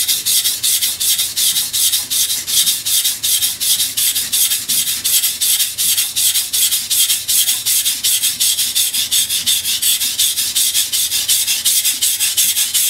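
A steel bunka kitchen knife drawn back and forth under the fingers across a water-soaked whetstone: a wet, rasping scrape on every stroke, in a quick, even rhythm.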